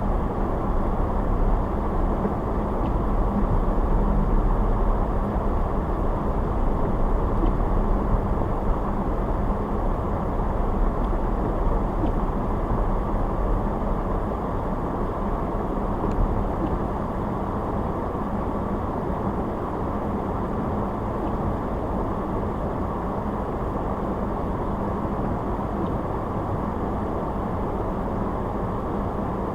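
Car being driven, with a steady rumble of road and tyre noise and a low hum; the deepest rumble eases about halfway through.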